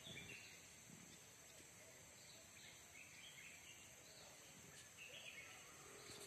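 Faint natural ambience: a steady high-pitched insect drone, with scattered faint bird chirps.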